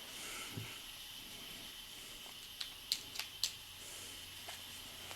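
Faint steady hiss with a few short, light clicks in the middle, the sharpest about three seconds in.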